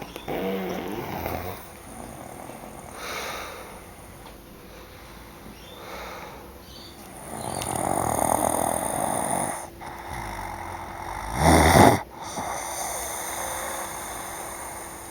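People snoring in their sleep, with slow, uneven snoring breaths a few seconds apart. The loudest and sharpest one, almost a snort, comes about eleven and a half seconds in.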